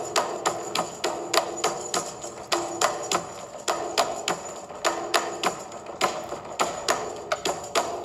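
Background music: a quick, steady rhythm of sharp percussive hits over sustained tones.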